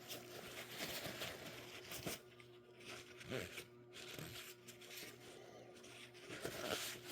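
Paper towel rubbing and scrubbing inside a carburettor float bowl to wipe out caked-on green residue: faint, irregular scuffing and crinkling with a few small clicks.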